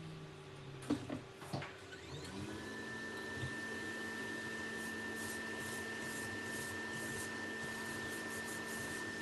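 A small electric blower or fan motor switches on with a couple of clicks, spins up with a short rising hum about two seconds in, and then runs steadily with a rushing air sound.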